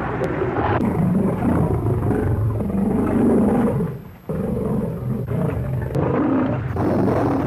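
Big cats, lions and tigers, roaring and snarling over and over, with a brief break about four seconds in.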